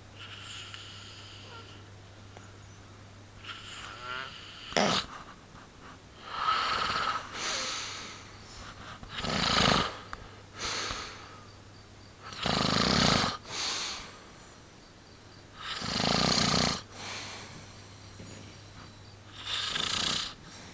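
A person snoring heavily in sleep: about five loud snores a few seconds apart, each followed by a shorter, quieter one.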